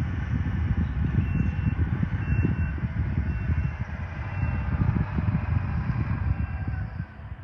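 Diesel engine of a compact loader running under load as it works dirt, with its backup alarm beeping faintly about once a second. The engine noise drops off sharply near the end.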